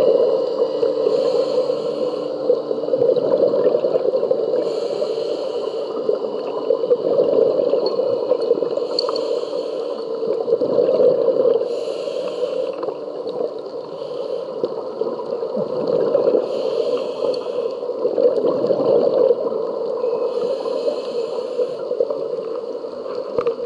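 Scuba diver breathing through a regulator underwater: six roughly one-second hisses, every three to five seconds, with bubbling in between, over a steady underwater rush.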